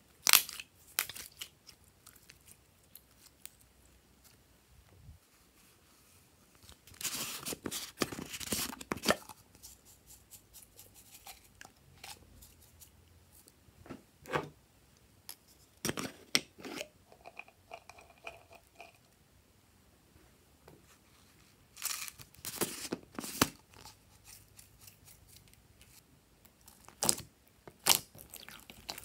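Glossy slime being pressed, squished and poked by hand: several short bursts of wet crackling and popping, with quiet gaps between.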